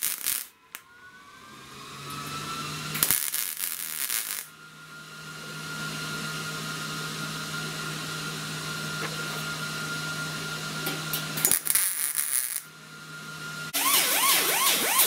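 MIG welder crackling in short bursts, spot-welding a drilled crack in a steel fender, three times, with a steady whine between the welds. Near the end an angle grinder grinds the weld down, its pitch dipping each time it bites.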